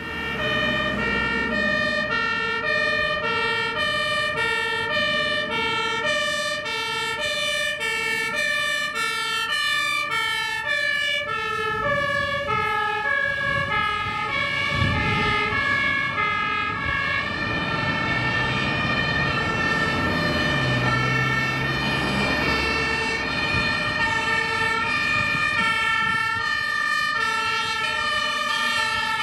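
German two-tone emergency sirens (Martinshorn) on fire engines driving past on blue-light runs, alternating high and low about every two thirds of a second. In the middle more than one siren sounds at once, out of step, over the low running of a truck's diesel engine.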